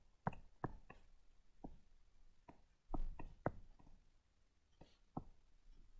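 Faint, irregular clicks and taps of a stylus tip on a tablet surface during handwriting, with a slightly louder knock about three seconds in.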